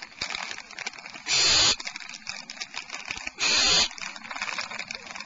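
Barn owl nestlings hissing twice, each hiss a short harsh rasp of about half a second, over soft rapid clicking and rustling in the nest cavity.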